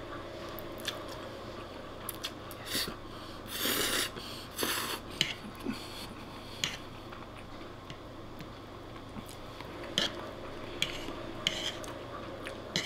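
Spaghetti being slurped in two noisy rushes a few seconds in, and a metal fork clicking and scraping against a wooden plate several times as more pasta is twirled up.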